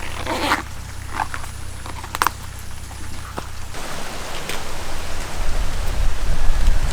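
Rain falling: a steady hiss that grows louder and fuller about four seconds in, with a few light knocks in the first half.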